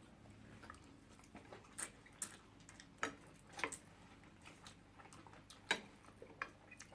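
Quiet eating sounds: scattered sharp mouth smacks and clicks of people chewing food, about half a dozen over a few seconds.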